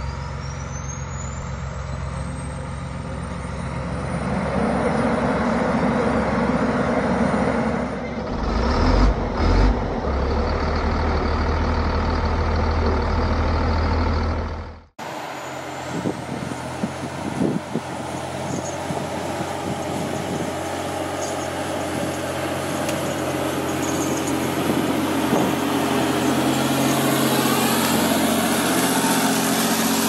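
John Deere 948L skidder's diesel engine running, with a high whine rising in pitch over the first few seconds and the engine growing louder about four seconds in. After an abrupt cut about halfway, a skidder's diesel engine pulling a heavy disc harrow through the ground, with scattered knocks and clatter.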